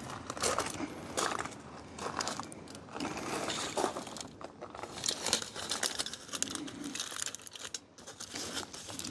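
Aluminium foil crinkling and crackling irregularly as hands fold a crumpled foil tray closed.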